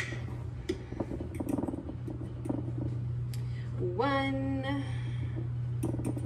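A measuring cup scooping flour from a glass jar: a sharp clink at the start, then soft scraping and rustling of flour with a few light clicks. A woman gives a short hum about four seconds in, over a steady low hum.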